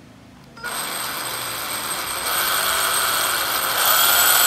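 National EZ6813 24V cordless hammer drill switched on about half a second in and running free with a motor whine, getting louder in steps as the variable-speed trigger is squeezed further.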